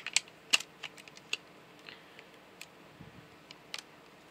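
Hard plastic clicks and light rattles from a Transformers Studio Series Mixmaster action figure being handled, as a part is worked onto its two inner clips. The clicks come in a quick cluster in the first second and a half, then a few scattered ones.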